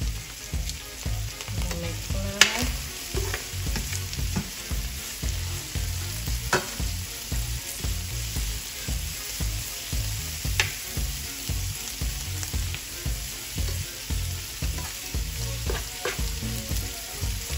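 Bell peppers sizzling as they sauté in olive oil and butter in a pan, stirred with a utensil, with three sharp clinks about four seconds apart.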